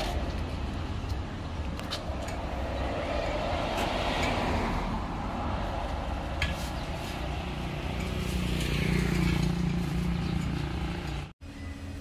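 Road traffic: a steady engine rumble with vehicles passing close by, swelling and fading twice. The sound cuts off abruptly near the end.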